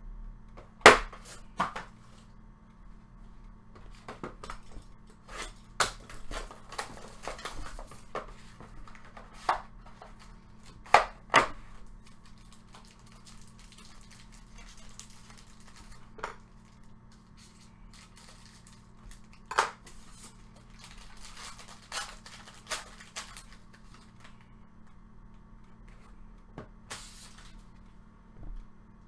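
Plastic wrapping on a pack of trading cards being handled and torn open, with crinkling and sharp taps and clicks of cards and packaging against a wooden tabletop; the loudest tap comes about a second in. A faint steady hum runs underneath.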